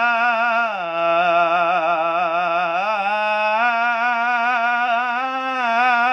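A young man's unaccompanied voice reciting the Qur'an in the melodic tajwid style, drawing out one long ornamented phrase with a wavering pitch that drops lower about a second in and climbs back near three seconds.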